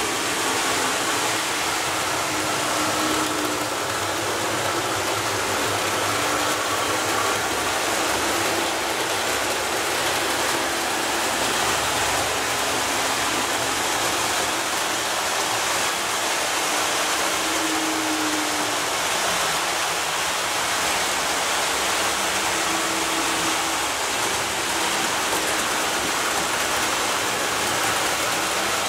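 OO gauge model diesel locomotive running on DC power with an eight-car passenger train: a steady rolling noise of the train on the track, with a faint motor whine that comes and goes.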